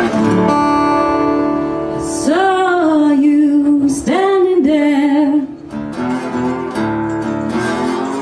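Band music: an acoustic guitar intro, with a sliding, wavering melody line over it in two phrases in the middle.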